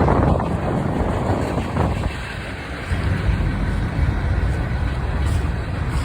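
Freight train rolling past at speed: a steady rumble of wheels on rail, with wind buffeting the microphone.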